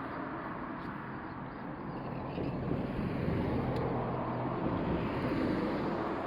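Road traffic noise: a vehicle's rumble that swells through the middle and eases off near the end, as a car passes.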